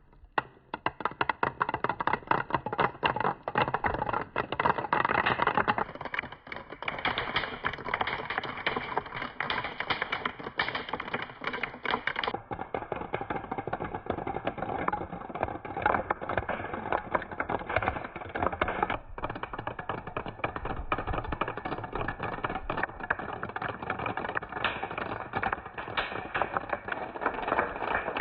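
Many marbles rolling and clattering along a marble run track, a dense, continuous stream of rapid clicks and rattles.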